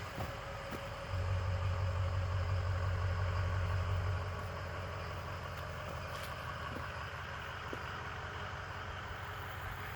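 A motor vehicle's engine running nearby: a steady hum, with a louder low rumble that swells about a second in and eases back after about three seconds.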